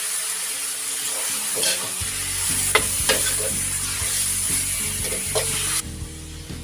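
Raw beef cubes sizzling in a metal wok while a metal ladle stirs them, clinking and scraping against the pan a few times. The sizzle cuts off suddenly near the end.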